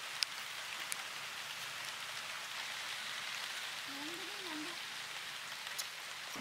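Steady outdoor hiss with a few faint clicks from a knife scoring a whole raw chicken on a wooden stump. A faint wavering tone comes in about four seconds in.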